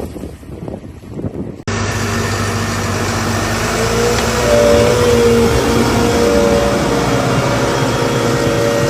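Low wind noise on the microphone, then, after an abrupt cut less than two seconds in, a motor vehicle engine running steadily, its pitch rising a little about four seconds in.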